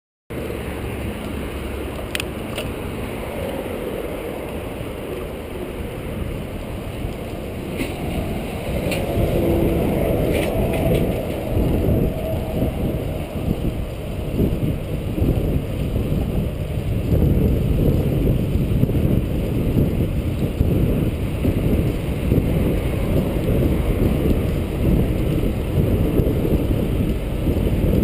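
Riding noise from a bicycle on a paved trail: wind rushing over the microphone with a low rumble from the tyres. A few light clicks or rattles come in the first ten seconds, and the rushing grows louder from about nine seconds in.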